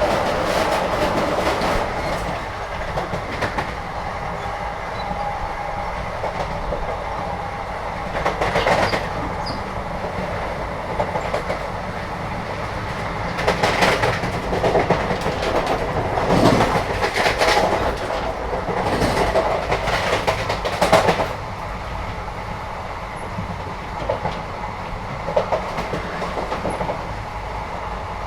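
Running noise heard from inside a moving Indian train carriage: a steady rumble with wheels clattering over rail joints, in bunches of sharp clacks, busiest for several seconds past the middle.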